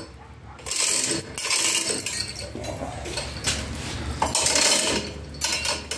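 Steel chain of a manual chain hoist clinking and rattling in irregular bursts as the hand chain is pulled.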